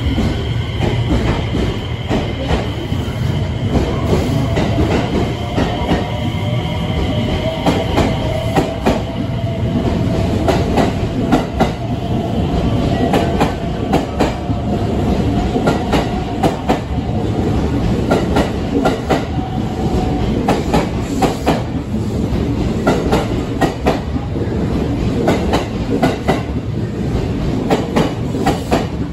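A 12-car JR West 225 series electric train accelerating past at close range, with a continuous wheel-and-rail rumble. Its traction motors give a whine that rises slowly in pitch as it gathers speed, and from about a quarter of the way in its wheels click repeatedly over rail joints.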